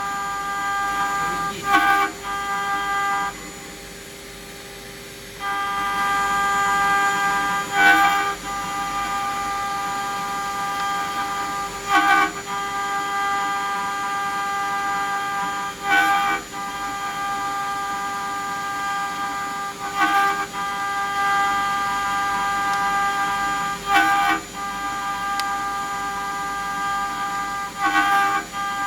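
CNC engraving machine running with a steady multi-tone whine from its drive motors. A short sharp click comes about every four seconds, and the whine drops out for about two seconds near the start.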